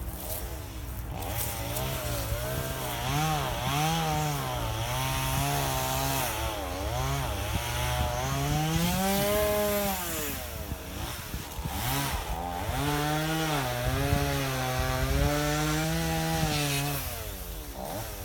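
Two-stroke chainsaw running and cutting wood, its engine pitch rising and falling with throttle and load. It drops away briefly about eleven seconds in, then runs again until near the end.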